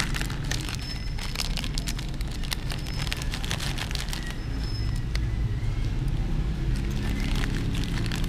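Crinkly plastic snack packet being squeezed and torn open by hand, a run of irregular crackles and rustles, over a steady low hum.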